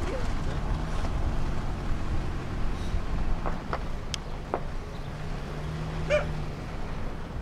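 Car driving slowly on a snow-covered road: a steady low engine hum and tyre noise. A few light clicks come around the middle, and a short pitched sound about six seconds in.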